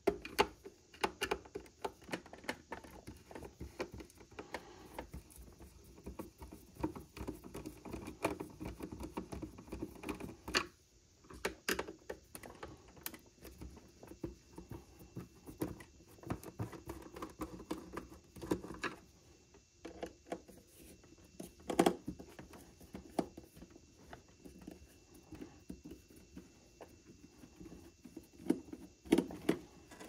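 Hand screwdriver turning screws out of a Keurig K-Supreme coffee maker's plastic base, with the plastic housing being handled: a run of small clicks, ticks and scrapes, with a few louder knocks, the loudest about 22 seconds in.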